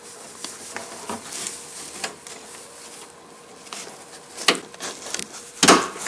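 Small plastic clicks and taps as a plastic door-lock rod clip is worked into place on the lock mechanism inside a pickup's door, with two sharper clicks about four and a half seconds in and near the end.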